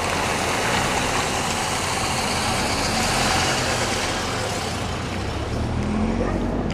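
Car running: a steady low engine hum under an even rush of road and tyre noise.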